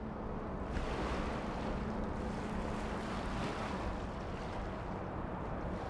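Steady riverside ambience: wind and river-water noise with a low rumble.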